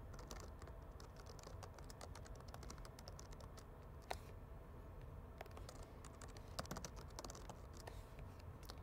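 Faint typing on a computer keyboard: irregular keystroke clicks, with a couple of slightly louder keys about four and six and a half seconds in.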